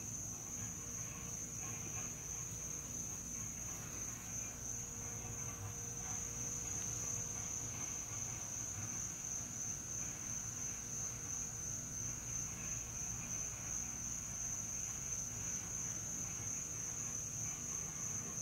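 Night insects trilling in a steady, unbroken high-pitched chorus, with a low steady rumble underneath.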